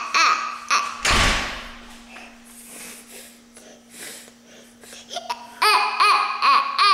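Toddler letting out short, high-pitched yells and squeals in a garage, ringing off the walls, with a loud thump about a second in.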